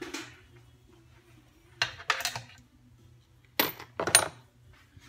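Small loose metal screws clinking as they are handled and set down on the bench, in two brief clusters of knocks about two and four seconds in, over a faint low steady hum.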